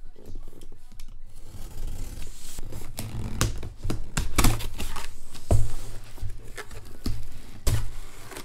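Cardboard shipping box being opened: packing tape scratched at and torn open and cardboard flaps scraping, with irregular sharp scratches and dull handling bumps, the loudest about halfway through.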